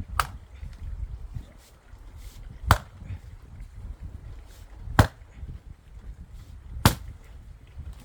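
Axe splitting firewood: four sharp chopping strikes, about two seconds apart.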